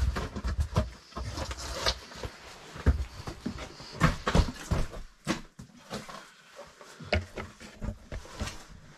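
Someone squeezing through a tight cave passage: irregular scrapes and knocks of body and gear against rock, with heavy breathing.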